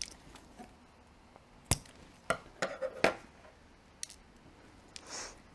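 Scissors snipping synthetic whalebone corset boning, cutting the end to a point so it slides into a tight boning channel: a run of about five sharp clips through the middle, then a soft rustle near the end.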